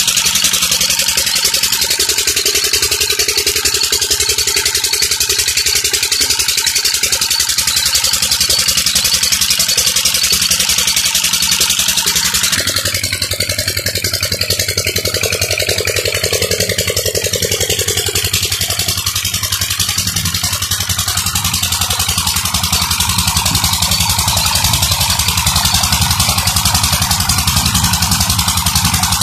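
Single-cylinder diesel 'Peter' engine running steadily at a tubewell, pumping water that gushes out of the outlet into a concrete channel.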